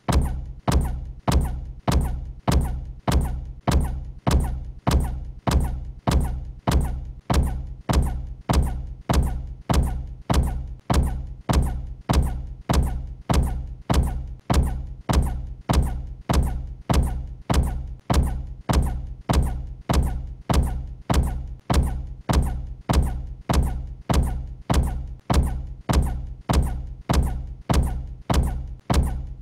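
A deep thud repeated over and over at a steady, unchanging pace of a little under two hits a second, each with a sharp start and a short low boom dying away: one impact sound looped.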